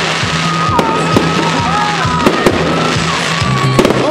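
Fireworks going off overhead in a rapid, irregular series of bangs and crackles, with music playing underneath.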